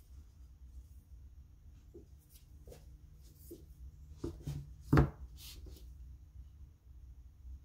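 A metal T-square ruler being handled and slid into place on paper: a few light knocks and rubbing scrapes, then one sharp knock about five seconds in as it is set down.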